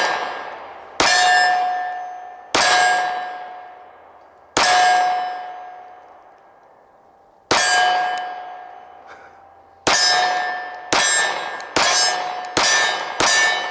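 About ten 9mm Glock 26 pistol shots, each followed by the long fading ring of a struck steel target. The first shots come one to three seconds apart; the last five come quickly, about one a second, near the end.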